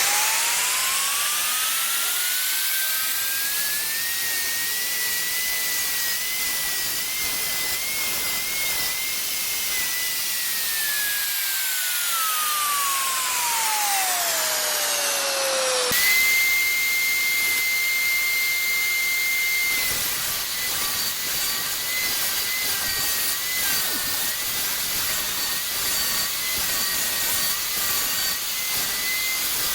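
Electric woodworking power tool spinning up to speed with a rising whine, running with small dips in pitch as it works, then winding down. Partway through it runs again at full speed, steady with small dips.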